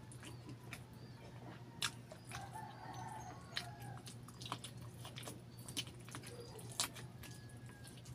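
Close-up wet chewing and lip smacks from eating saucy chicken barbecue and rice by hand, with several sharp mouth clicks over a steady low hum. A faint rooster crow sounds in the background about two and a half seconds in.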